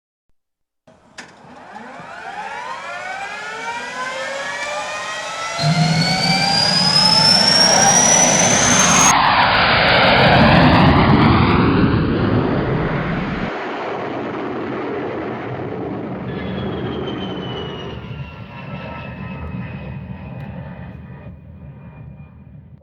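An aircraft passing overhead: a loud roar that swells for about ten seconds, peaks, then slowly fades, with sweeping changes in pitch. It cuts off sharply at the end.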